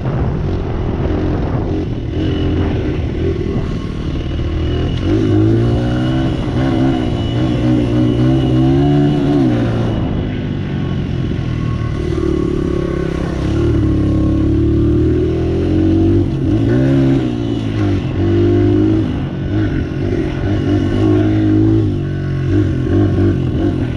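Small 100 cc dirt bike engine being ridden up a trail, its revs rising and falling over and over as the throttle is worked.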